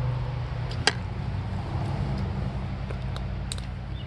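Footsteps through brush on a muddy creek bank: a sharp twig snap about a second in and a few lighter clicks near the end, over a steady low rumble.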